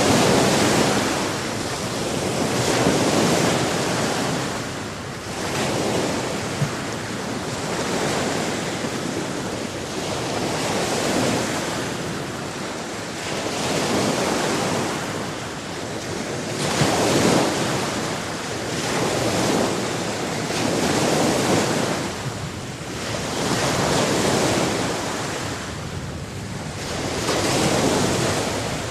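Sea waves breaking and washing on a shore, swelling and ebbing every two to three seconds, with some wind noise.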